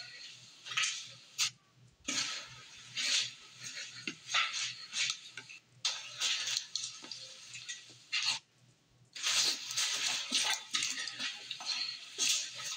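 Irregular rustling, crunching and clattering noises, several a second, with two short lulls: movement over debris in a derelict building, heard while an explorer listens for someone else there. The sound is re-recorded off a screen's speaker.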